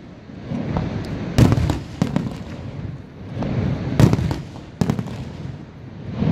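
Aerial fireworks shells bursting: several sharp bangs, the loudest about a second and a half in and again about four seconds in, with a low rumble carrying on between them.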